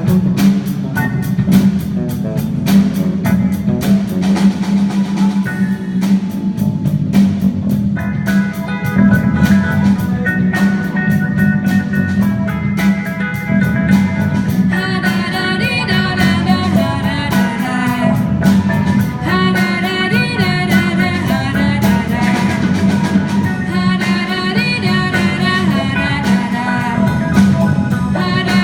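Live band music: drum kit and guitar over a steady bass note, with a voice singing the melody from about halfway through.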